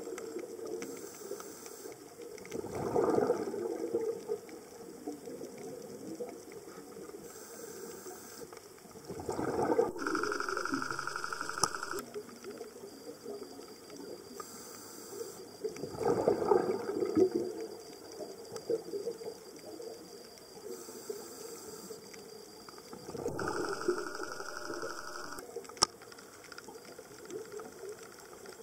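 Scuba diver breathing through a regulator, heard underwater: a hiss on each inhale and a gurgling burst of exhaled bubbles, four breaths about six to seven seconds apart.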